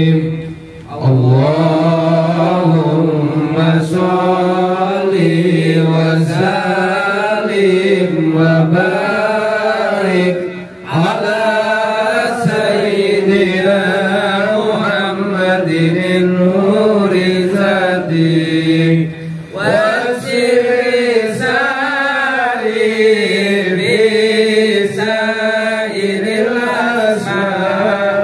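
A low male voice chanting long, ornamented melismatic lines. It pauses for breath about every nine to ten seconds.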